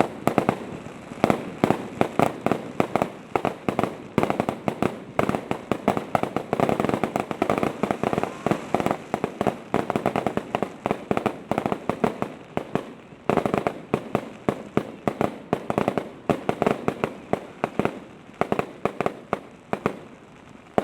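A starmine barrage of aerial firework shells bursting in rapid succession: many sharp bangs a second, packed close together.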